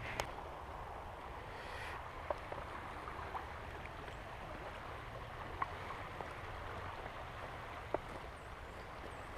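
A small creek running with a steady rushing sound, with a few short, sharp ticks scattered through it.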